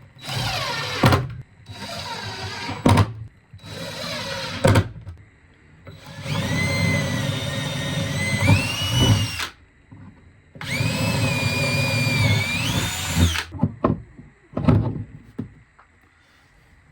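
Power drill driving screws in five runs, the motor whine rising and falling with the trigger: three short runs, then two longer ones of about three seconds each, with a few light knocks between, as the diesel heater's mount is screwed down.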